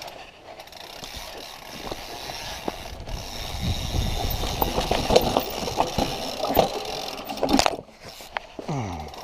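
Mountain bike coasting down a steep rocky trail: the rear hub's freewheel ratchet clicking, with rattles and knocks from the bike over rocks. It gets louder about a third of the way in and eases briefly near the end.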